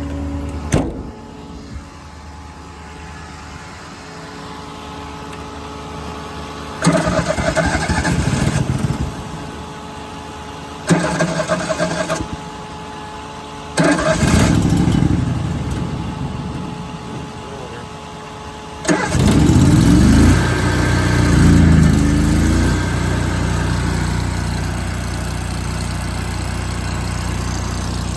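Machinery on a diesel service truck: several short loud bursts of mechanical noise over a steady low hum, then about two-thirds of the way in an engine starts, its pitch wavering briefly, and settles into steady running.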